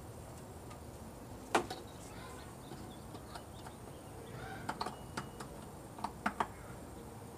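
Plastic clicks and knocks from a BMW engine's air filter housing as it is handled and refitted after a filter change: one sharp click about a second and a half in, a quick run of small clicks later, and two more clicks near the end.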